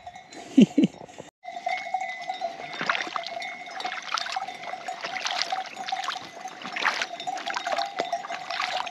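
Bells on grazing livestock clanking and ringing on without pause, with a short loud low sound about half a second in and a brief break soon after.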